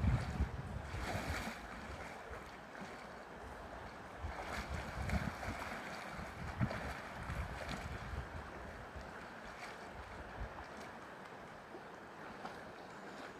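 River water rushing steadily, with wind buffeting the microphone in low gusts, strongest right at the start and again in the middle.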